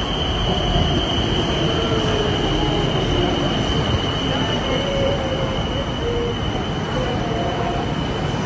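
BTS Skytrain electric train pulling into an elevated station and sliding slowly past the platform: a steady rumble of the carriages with a continuous high-pitched whine over it.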